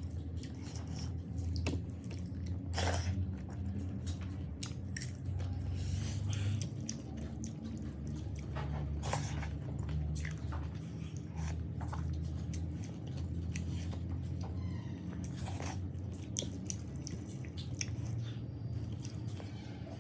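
Close-up eating of boiled fish and bamboo shoots: chewing and wet mouth sounds with scattered short clicks and soft crunches, over a steady low hum.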